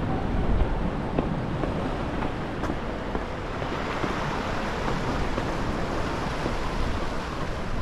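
Sea waves washing against the shore rocks, with wind buffeting the microphone in a steady rumble.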